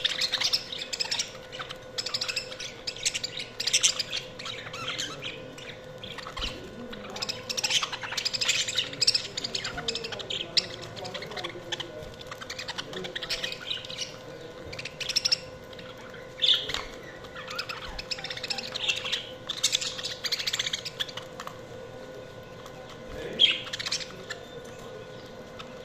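Budgerigars chirping and squawking in irregular bursts of quick high calls, with short lulls between bursts and one sharp, louder squawk near the end.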